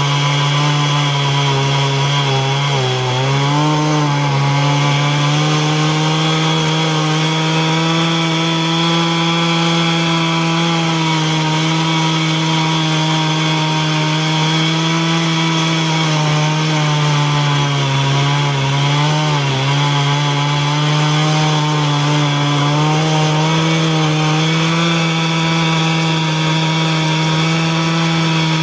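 Stihl MS 440 two-stroke chainsaw running at full throttle, ripping lengthwise through a southern yellow pine log on an Alaskan chainsaw mill. The engine pitch holds steady, sagging briefly under load about three seconds in and again around nineteen seconds in.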